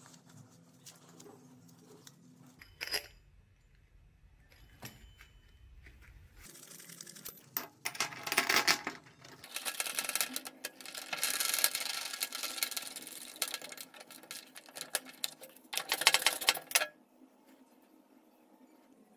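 Metal parts being handled, clinking and scraping in several stretches from about seven seconds in, loudest near eight and sixteen seconds.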